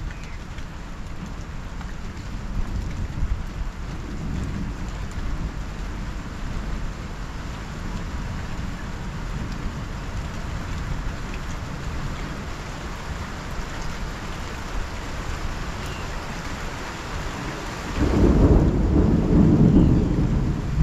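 Rain falling steadily under a low rumble of thunder. About eighteen seconds in, a much louder peal of thunder starts suddenly and keeps rumbling.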